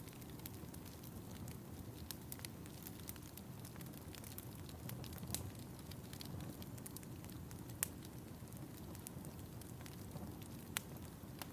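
Wood fire crackling in a fireplace: a steady low rumble of flames with scattered sharp crackles and a few louder pops.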